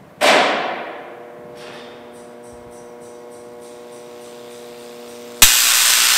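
A loud clunk with a decaying echo, then a steady electrical hum from the energised 75,000-volt supply. About five seconds in, a high-voltage arc strikes from the hanging electrode into the boombox with a sudden, loud, harsh buzz that keeps going.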